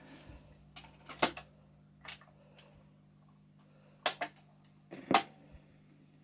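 A handful of sharp clicks and knocks from the Dansette Major record player being handled and set going, over a faint steady low drone.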